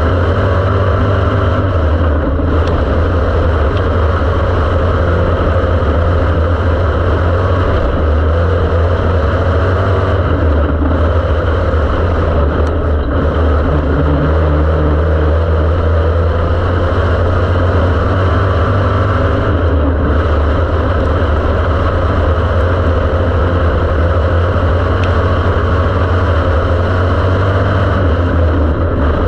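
Dirt-track race car's engine running hard at racing speed, heard from inside the cockpit: a loud, steady drone with a few brief dips.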